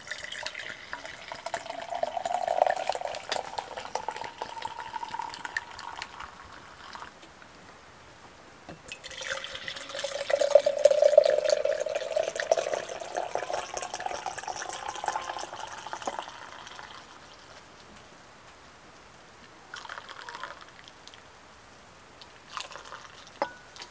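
Liquid poured from a vacuum flask into a cup in two pours, each with a pitch that rises as the cup fills. A few small knocks follow near the end.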